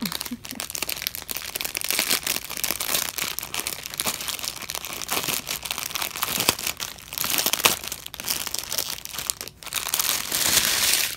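Clear plastic wrapping crinkling and rustling continuously as hands pull it open and handle the small plastic packets of diamond-painting drills inside, loudest near the end.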